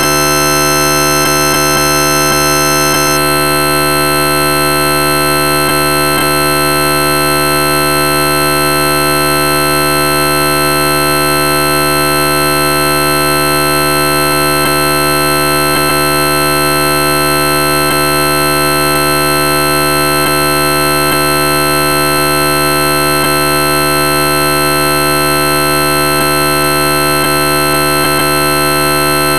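Black MIDI played on a synthesized piano: a huge C major chord held as one steady wall of many notes at once across the keyboard. A couple of its highest notes drop out about three seconds in.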